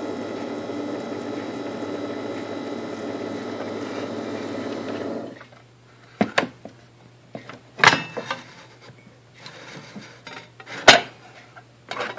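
Single-serve coffee maker running steadily as it brews into a ceramic mug, stopping suddenly about five seconds in. Then several sharp knocks and clinks as the ceramic mug is handled and turned on the machine's drip tray, the loudest near the end.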